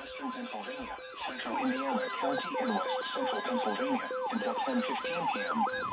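Emergency alert audio: a steady alert tone near 1 kHz with a fast yelping siren tone sweeping up and down over it, roughly three times a second, starting about a second in.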